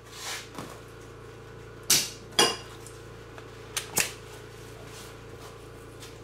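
Several short, sharp metallic clanks and knocks of tools being handled and set down in the shop, the two loudest about half a second apart around two seconds in and two smaller ones near four seconds, over a steady low hum.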